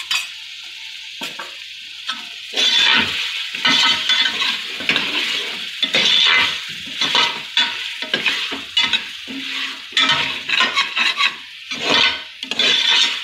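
Steel spoon stirring and scraping mutton masala against the side and bottom of an aluminium pressure cooker, the mixture sizzling as it fries. The scraping strokes come quick and irregular from about two and a half seconds in.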